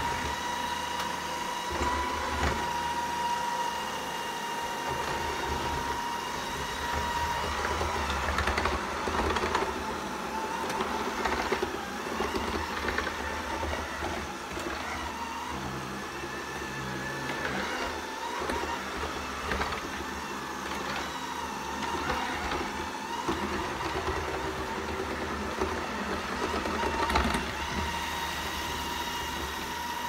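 Shark ION RV700 robot vacuum running, its motor giving a steady whine over a low rumble as it cleans across tile and carpet. Scattered clicks and knocks come through, the sharpest near the end.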